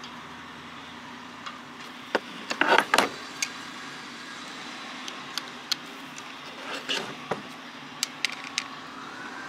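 Hard plastic and metal parts and hand tools being handled and set down: a quick cluster of sharp clacks about two and a half to three seconds in, then scattered lighter clicks, over a steady background hum.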